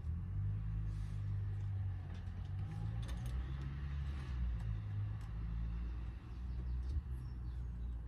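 Low, steady engine rumble, like a vehicle idling.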